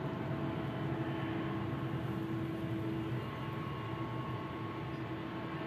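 Boeing 777-300 jet engines running at low taxi thrust as the airliner turns onto the runway: a steady rumble with a few held whining tones.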